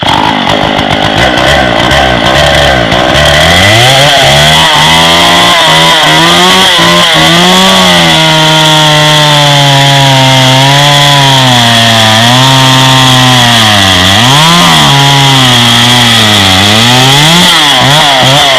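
Homelite 410 two-stroke bow-bar chainsaw running loud. It revs up to full throttle about three seconds in, then holds high speed while cutting, its pitch sagging twice under load near the end before recovering.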